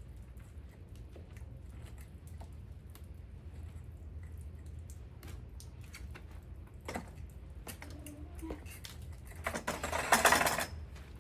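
Truck being hand-washed: scattered light clicks and rubbing over a steady low hum, with one louder hissing rush about a second long near the end.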